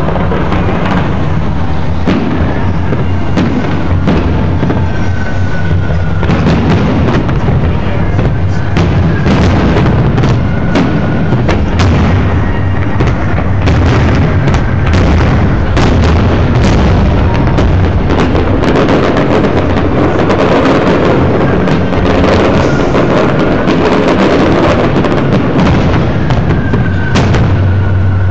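Large aerial fireworks display: shells bursting in rapid, overlapping bangs and booms over a constant low rumble.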